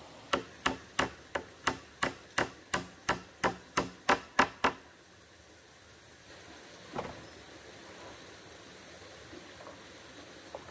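Hammer driving nails into a wooden plank: about fourteen steady blows, roughly three a second, the last few the hardest. A single knock on the wood follows a couple of seconds later.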